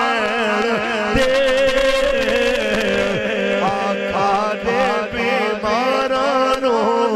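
A man sings a Punjabi devotional verse (naat) into a microphone in long, wavering held notes and melodic runs, with a steady low hum beneath.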